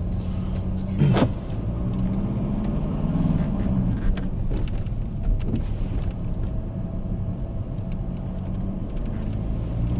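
A car running, with a steady low engine hum and a few faint clicks.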